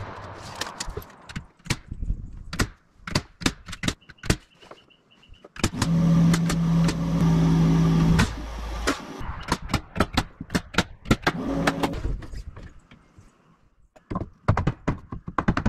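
Nailing into wood framing: quick runs of sharp strikes, about four a second at times. A motor hums steadily for a couple of seconds about six seconds in, and again briefly near twelve seconds.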